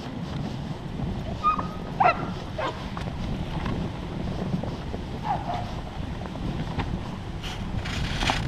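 Sled dogs in harness giving a few short rising yips and whines while the team runs, over a steady low rumble of the moving sled and wind on the microphone.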